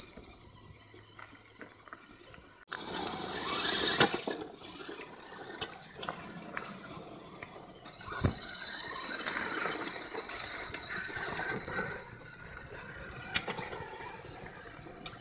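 Electric 1/10-scale RC trucks driving over a gravel trail: tyres crunching and scattering stones, with motor and gear whine and scattered clicks, starting abruptly about three seconds in.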